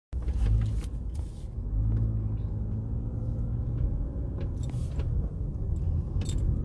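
Low, steady rumble of a car, with scattered light clicks.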